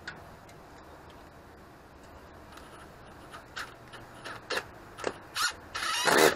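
A hand-held tool working a glued-up wooden piece: a series of short scraping strokes about half a second apart that get louder, ending in a longer, louder stroke near the end. A single click about the start.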